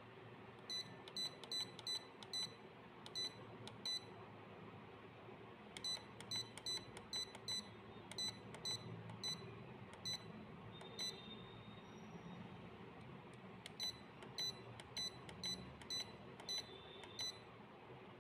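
Key-press beeps from the control panel of a manual aluminium foil induction sealing machine as its setting is stepped up button by button: about two dozen short, high beeps in three runs of two or three a second, with a pause about four seconds in and another near twelve seconds.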